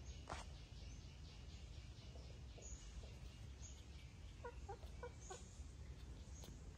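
A hen clucking faintly: four short clucks in quick succession about two-thirds of the way through, over a low steady rumble, with a few faint high chirps scattered through.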